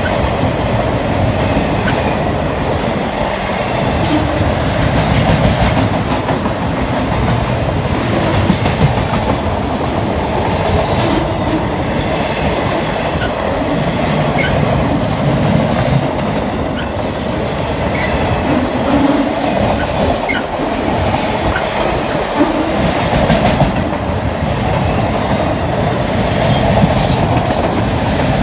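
Freight train of autorack cars rolling past close by: steady, loud noise of steel wheels on rail, with occasional clicks from the wheels over the track.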